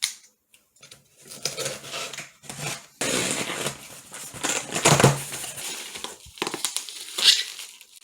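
A package being opened by hand: cardboard and packing material rustling, crinkling and scraping in irregular bursts, louder from about three seconds in.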